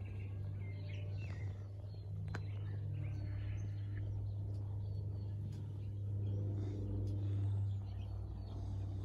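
Small birds chirping now and then over a steady low hum.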